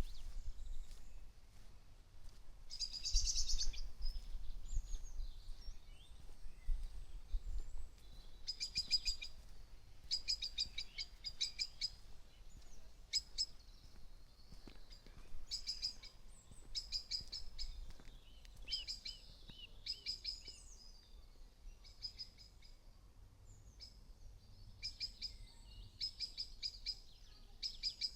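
Birdsong: several birds singing, with short, high phrases of rapidly repeated notes coming every second or two, over a faint low rumble.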